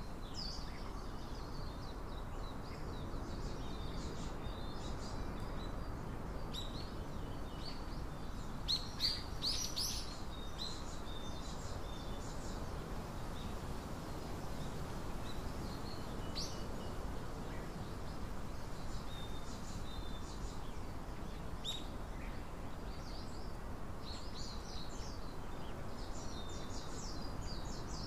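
Small birds chirping on and off over a steady low background noise, with the loudest cluster of chirps about nine seconds in.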